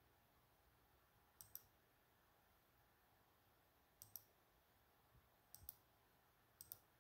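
Faint clicks of a computer mouse button: four quick pairs of sharp clicks, a press and release each time, spread a second or two apart.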